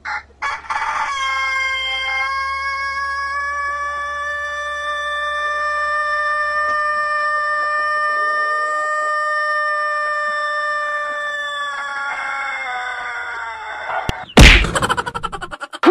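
Rooster crowing one extremely long crow, held on a single steady pitch for about ten seconds before sagging and falling off at the end. A loud sudden noise follows near the end.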